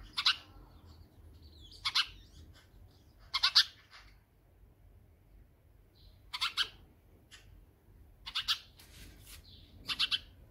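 Male house sparrow chirping in short clusters of one to three loud chirps, about every one and a half to two seconds, calling to another sparrow.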